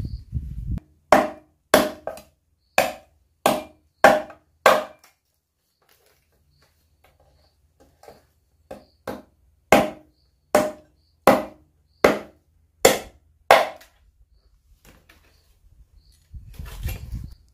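Bamboo being chopped with a blade: sharp woody strikes about one and a half a second, a run of six, a pause of a few seconds, then a run of about seven more.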